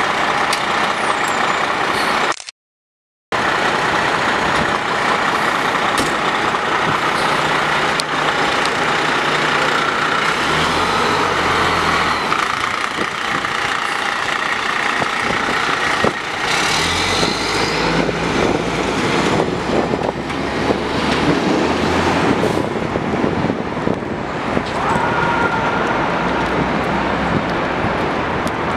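Seagrave rear-mount aerial ladder fire truck's diesel engine running as the rig pulls out and drives off, amid city traffic noise. The audio drops out to silence for about a second, two and a half seconds in. A siren starts to wail near the end.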